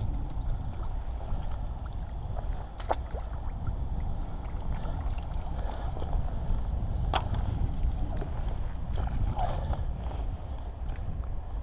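Low rumble of wind on the microphone, with a few short splashes and knocks as a hooked trout is played at the surface and drawn into a landing net.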